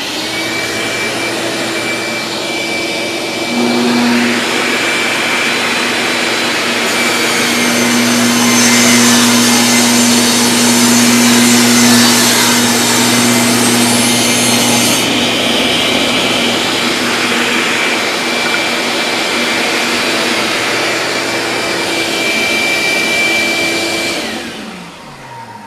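A table saw runs together with a vacuum cleaner hooked to it for dust collection; both start suddenly and run steadily. From about a third of the way in to past the middle, the blade rips through a mahogany board and adds a harsher, higher hiss. Near the end the machines switch off and wind down.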